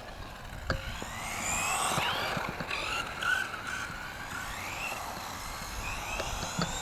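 S912 Luctan RC monster trucks driving, their electric motors whining and gliding up and down in pitch with the throttle, with a few sharp knocks.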